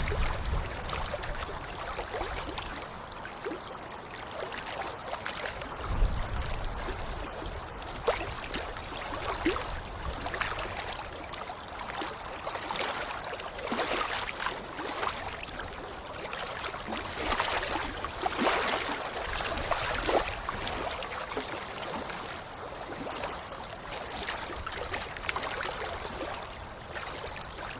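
Flowing water: a steady rush with irregular louder splashes coming and going, and a low bump about six seconds in.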